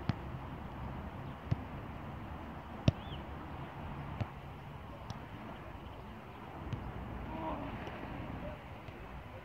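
A football being kicked on artificial turf in a passing drill: a string of short, sharp thumps, roughly one every second or two, the loudest about three seconds in, over a steady outdoor hiss.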